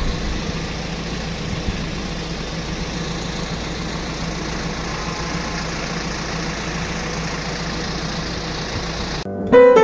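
Steady engine hum of road traffic, a constant low drone with a faint whine above it. It cuts off suddenly near the end as piano music starts.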